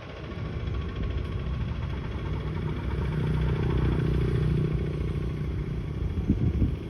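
A motor vehicle engine running, growing louder toward the middle and easing off near the end, with a brief knock shortly before the end.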